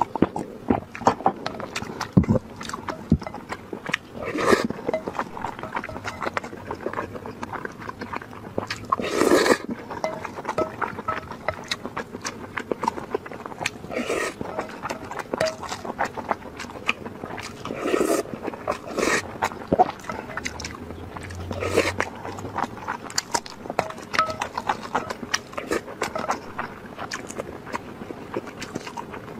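Wet, close-miked chewing and lip-smacking of a person eating spicy food, with a louder slurp or suck every few seconds.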